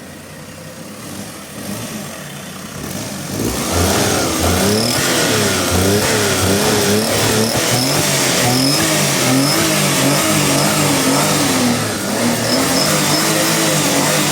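Daihatsu kei car's 0.7-litre turbocharged three-cylinder engine running quietly, then from about three and a half seconds in revved up and down over and over. The mechanic judges the engine to be misfiring, running rough on one cylinder.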